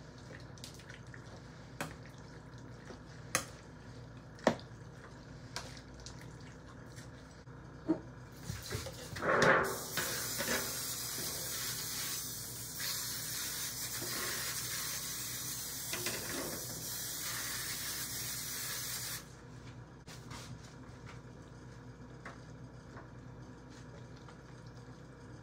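A metal spoon clicking against a ceramic bowl while chicken is stirred, then a short clatter and a steady hiss of aerosol cooking spray into an aluminium foil pan for about nine seconds. The hiss cuts off, and only faint scraping follows as the mix is spooned into the pan.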